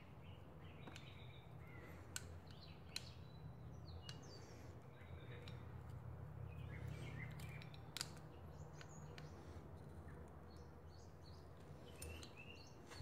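Quiet room tone with a steady low hum and faint birds chirping in the background, broken by a few light clicks of an Allen key and steel parts being handled on a motorcycle cylinder head.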